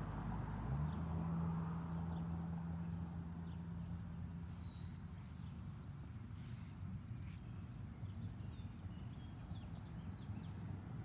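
Outdoor ambience: a low steady machine hum, with a held low tone that comes in about a second in and fades by the middle, and birds chirping and trilling now and then over it.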